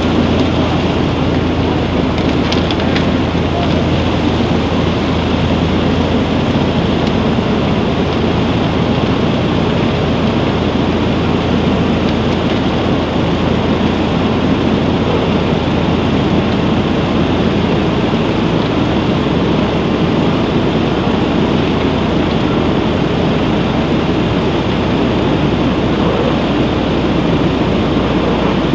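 Vibrafloor silo reclaimer running as it discharges crystal potash: a steady, loud mechanical noise with a low hum that drops out about two-thirds of the way through.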